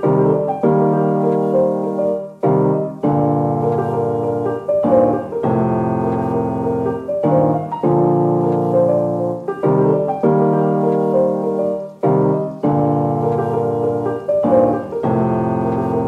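Background music: held chords that change every second or two.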